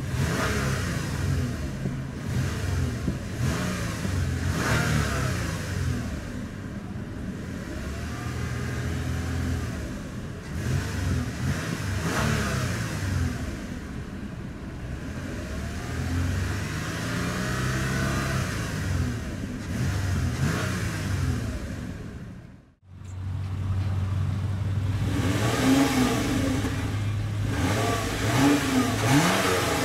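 Toyota Avalon's 3.5-litre V6 revved in park: a series of short blips rising and falling in pitch, settling back to idle between them. It is heard from inside the cabin at first, then, after a cut about three-quarters of the way through, from beside the exhaust tips with a couple more revs.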